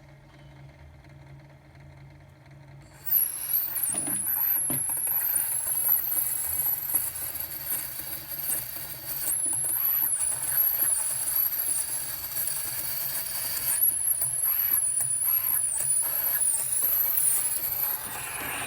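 Carbon-steel cutting stylus on an Edison Diamond Disc phonograph digging into a spinning acetate blank, cutting grooves. It sets in suddenly about three seconds in as a high, wavering squeal over a scraping hiss, and keeps on to the end.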